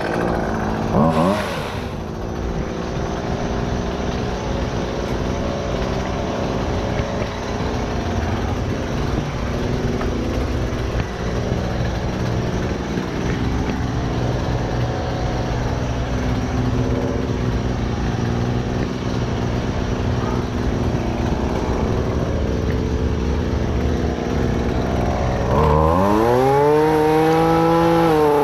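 An engine running steadily, briefly rising in pitch about a second in, then revving up and back down near the end.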